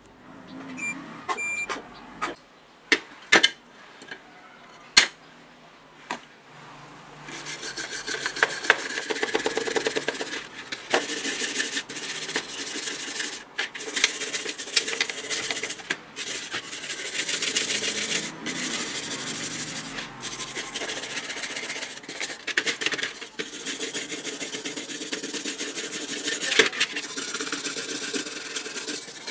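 Stiff brush scrubbing a grimy metal part of an old jigsaw in quick back-and-forth strokes, steady from about seven seconds in. Before that, a few sharp clicks and knocks of handling.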